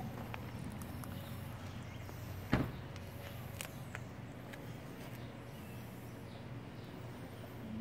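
Outdoor ambience with a steady low hum. A single sharp knock comes about two and a half seconds in, and a few faint short ticks follow.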